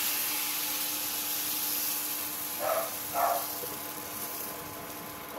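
Palappam batter sizzling in a hot appam pan as the pan is swirled to spread it, the hiss slowly dying down, with two short knocks of the pan about three seconds in.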